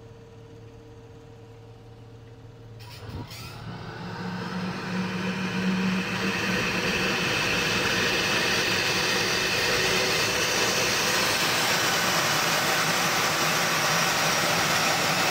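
Small gas-turbine engine of a jet go-kart: after a faint steady hum, it spools up from about three seconds in, a rising rush of noise that settles into a loud steady running sound by about six seconds.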